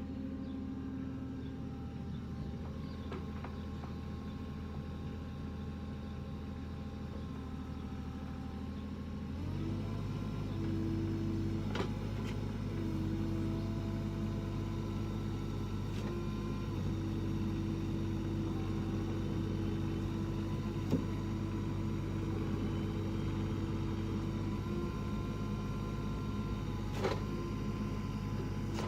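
Kubota U35 mini excavator's diesel engine running steadily. About a third of the way in it gets louder, and a steady higher tone joins the hum. A few sharp clicks or knocks come later.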